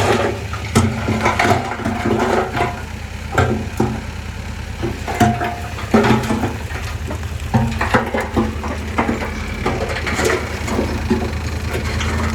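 Bulldozer's diesel engine running steadily while it works dirt, with irregular clanks, knocks and crunching on top of the drone.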